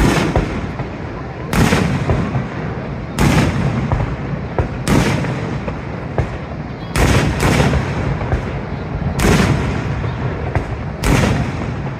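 Fireworks shells bursting in the air, about nine loud booms spaced one to two seconds apart, two of them close together around seven seconds in, over a constant low background rumble.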